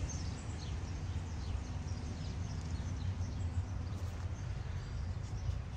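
Outdoor ambience: faint, scattered bird chirps over a steady low rumble.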